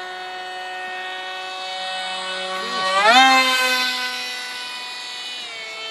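Whine of a foam RC jet's 2400kv brushless electric motor and 4.75-inch pusher propeller in flight. About three seconds in the pitch climbs sharply and it gets loudest, then it eases off, and it drops in pitch near the end.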